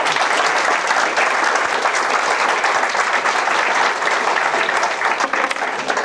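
Audience applauding: many hands clapping together in a steady, dense patter that starts at once and eases a little near the end.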